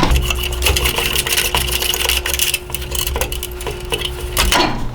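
Rapid metallic clicking and clinking as the two thumb screws on a Lowrance HDS7 GPS mount are unscrewed and the unit is freed, over a steady hum that cuts off suddenly near the end.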